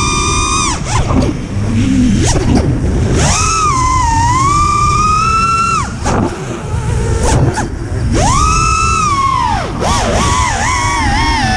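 FPV quadcopter's brushless motors whining from the onboard camera, the pitch gliding up and down with the throttle. Three times the whine drops away as the throttle is cut, then spools back up.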